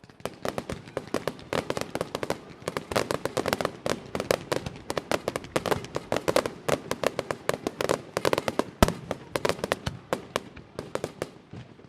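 Aerial fireworks display: a dense, rapid barrage of crackling and popping bursts, many per second without a break, with one heavier bang about nine seconds in.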